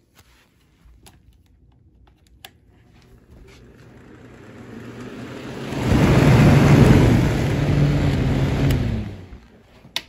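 Small electric fan running with the microphone brought right up to its grille: a rush of air with a low motor hum. It swells from about three seconds in, is loud for about three seconds, then fades just before the end.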